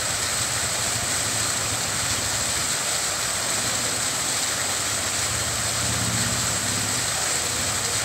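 Foam jet fountain nozzles running, aerated water splashing down in a steady hiss.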